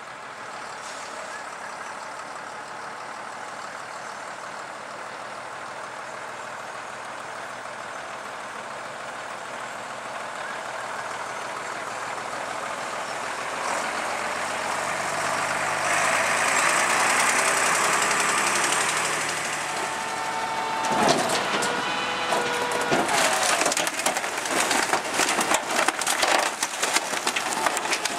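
Scania 93M rear-loader garbage truck's diesel engine running as the truck drives closer, growing louder past the middle. Then, about three quarters through, the rear loader's compactor works the hopper, with clatter and repeated sharp cracks of bulky rubbish such as a couch and wood being crushed.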